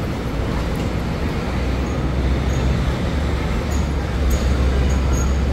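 Busy city street traffic, with a heavy vehicle's engine rumbling close by and getting louder from about a second and a half in. A few faint, short high chirps come through on top.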